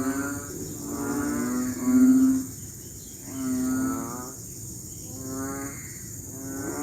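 Several male frogs giving low, drawn-out mating calls, about one call a second, overlapping at slightly different pitches. A rainy-season breeding chorus.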